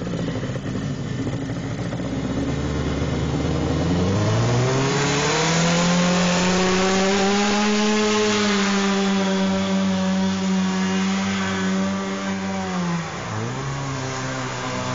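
Ski-Doo engine in a small aluminium jon boat revving up from a low run, then held at high speed as the boat planes away. It eases off briefly and revs back up near the end.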